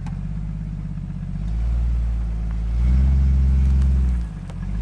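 Jeep Cherokee XJ engine pulling in reverse, getting louder about one and a half seconds in and again about three seconds in, then easing off briefly near the end before picking up again.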